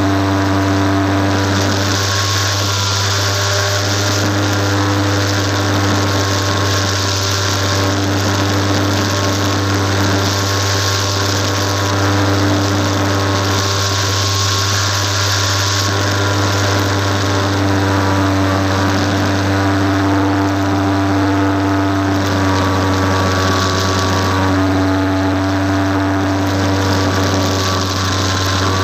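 Electric motor and propeller of a Fun Cub radio-controlled model plane in flight, heard from a camera on board: a steady drone whose pitch drifts slightly up and down, with rushing air that swells and fades every few seconds.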